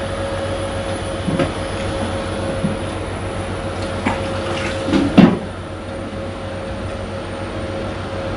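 Steady whir of a running fan with a low hum and a thin steady tone, broken by a few light knocks, the loudest about five seconds in.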